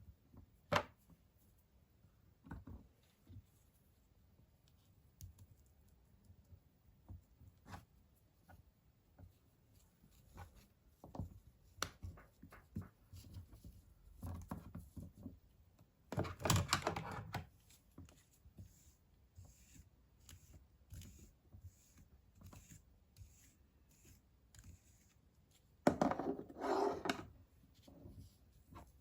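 Toy packaging being handled: scattered small clicks and taps, with two longer bursts of rustling, tearing-like noise, one about halfway through and one near the end.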